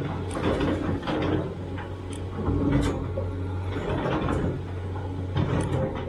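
Sumitomo SH490 excavator at work: its diesel engine runs with a steady hum, while scattered knocks and scraping come from the bucket digging into earth and stones.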